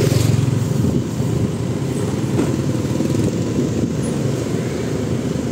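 Motorcycle engines running with road noise, heard while riding along, other motorbikes passing; the low rumble is loudest in the first second, then steady.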